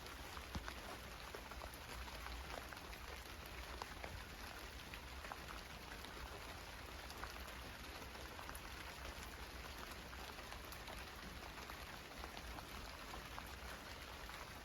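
Steady rain falling, a continuous hiss dotted with many small drop ticks landing on nearby surfaces.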